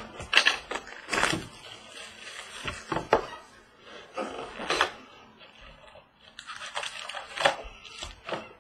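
Cellophane wrapping, cardboard and foil packaging of a sealed trading card box being torn and crinkled open, in a string of short crackling rips.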